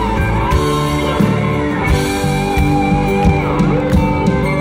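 Live pop-Schlager band playing: electric and acoustic guitars, drums and keyboards, with a male lead singer, heard from the audience.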